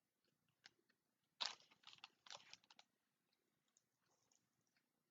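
Close-up chewing of soft beef jerky bites: a few short bursts of wet, clicky mouth sounds about a second and a half in, against near silence.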